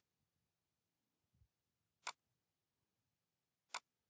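Computer mouse button clicks: three sharp single clicks, one right at the start, one about two seconds in and one near the end, with near silence between.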